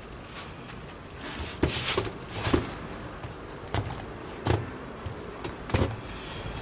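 A sneaker insole being worked loose and pulled out of the shoe: several short rubbing and scraping sounds of the insole dragging against the shoe's lining, with hands handling the shoe.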